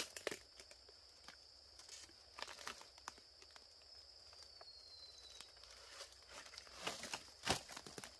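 Scattered crackles and snaps of tough, dry palm fibre being pulled and broken off a freshly chopped palm trunk by hand. There is a sharp knock at the start and a louder snap about seven and a half seconds in. A steady high insect drone sounds underneath.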